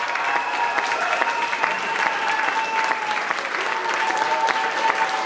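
Audience applauding at the close of a performance, with long held cheers over the dense clapping.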